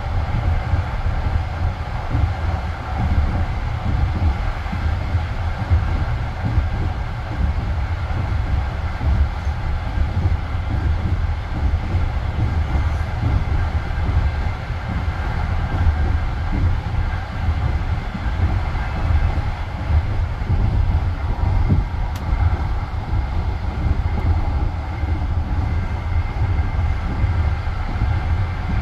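Passenger railway carriage running along the track at speed, heard from inside the car: wheels on rails make a continuous low rumble with a faint steady hum above it.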